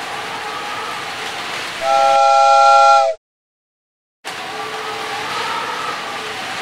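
A steady hiss with a faint hum under it; about two seconds in, a loud whistle-like chord of several steady tones sounds for about a second, then the sound cuts off abruptly to dead silence for about a second before the hiss comes back.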